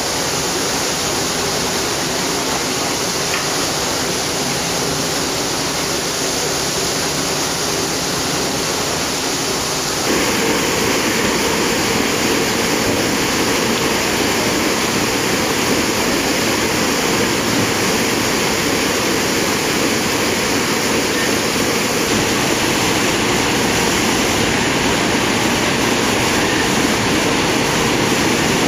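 Paddle wheels of the paddle steamer Italia churning the lake water as it moves off, a steady rushing of water that grows louder and fuller about ten seconds in.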